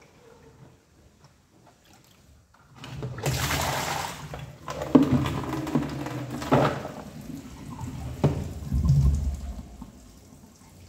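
Kitchen tap water splashing loudly into a sink as a red plastic colander is rinsed under the stream, starting about three seconds in and dying down near the end. A few sharp knocks sound during the rinsing.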